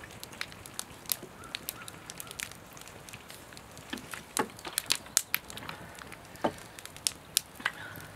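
Wood fire crackling, with irregular sharp pops and snaps, some much louder than others.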